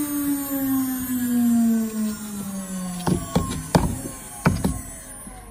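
CNC router spindle whining, its pitch falling smoothly over about three seconds as it winds down. It is followed by several sharp knocks and short scrapes as a hand scraper clears acrylic chips from around the cut letters.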